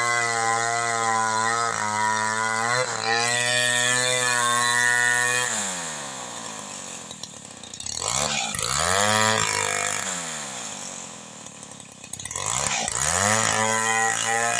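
Two-stroke chainsaw held at high revs for about five seconds, then let down toward idle, with two short blips of the throttle that rise and fall again.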